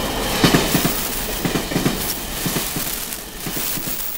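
Amtrak Amfleet passenger coaches rolling past close by, their wheels clicking over the rails in quick clusters about once a second. The rumble fades toward the end as the train draws away.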